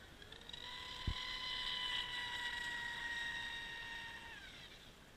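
High-pitched whine of a radio-controlled F1 tunnel boat's TP 4060 1600kv brushless motor on 6S turning its outboard-leg prop at full speed, holding steady, then dropping slightly in pitch and fading about four seconds in. The sound is muffled by a waterproof camera case, and a brief low thump comes about a second in.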